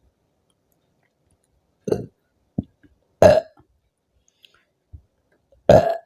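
A woman burping after drinking carbonated soda: three separate burps, about two, three and five and a half seconds in, the last two the loudest, with a few small sounds between them.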